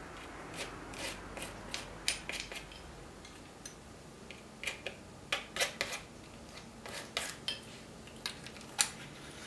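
Metal palette knife working over a painted board: a short scrape at first, then scattered small clicks and scratches.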